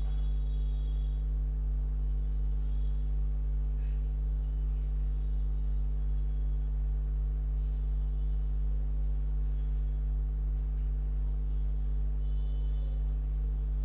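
Steady low electrical mains hum, an unchanging buzz with a stack of higher overtones over it.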